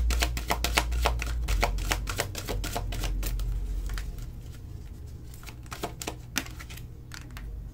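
A deck of oracle cards being shuffled by hand: a rapid run of card clicks that thins out to a few separate clicks over the last few seconds.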